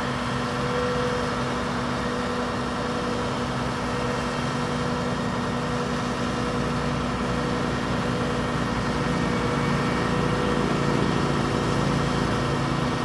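Boom truck's engine running steadily, with a few steady whining tones, as it winches the antenna tower upright; it grows a little louder in the second half.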